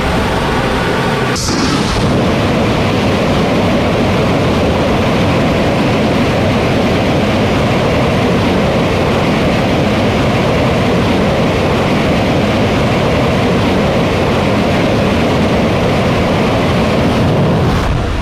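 3D-printed Relativity Space rocket engine firing: a loud, steady rush of exhaust noise without letup, with a brief high hiss about a second and a half in.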